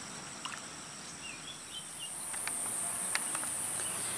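Insects chirring in a steady high-pitched drone that grows a little louder about halfway through, with a few faint clicks over it.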